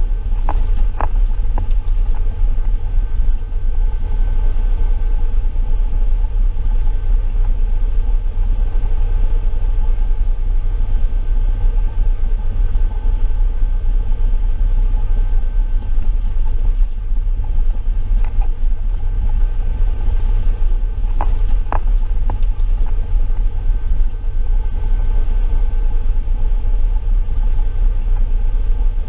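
Heavy tracked tractor's diesel engine running steadily under load: a deep, continuous rumble with a steady hum above it. A few faint clicks about a second in and again near two-thirds of the way through.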